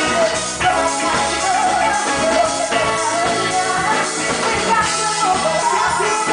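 Live band music: a woman sings lead through a microphone over electric guitar, keyboards and drums playing a steady beat.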